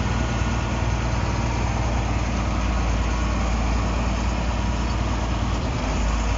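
Shantui crawler bulldozer's diesel engine running steadily, heard from inside the operator's cab.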